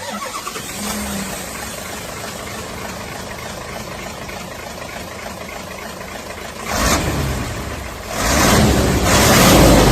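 Radio-controlled model excavator and dump truck at work: a steady engine-like running sound, with a short louder surge about two-thirds of the way in and a longer, louder one near the end.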